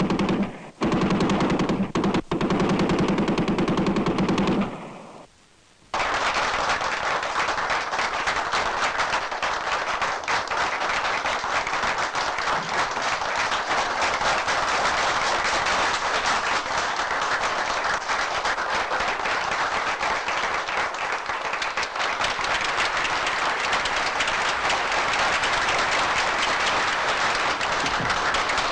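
Bursts of machine-gun fire for about five seconds, an execution by shooting. After a brief silence, a long, dense, even clatter of many sharp sounds follows.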